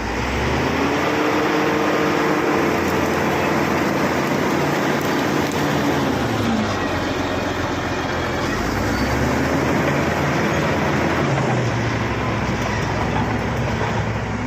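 Bulldozer's diesel engine working under load over a steady mechanical din, revving up about half a second in, easing off around six seconds and revving again near nine seconds.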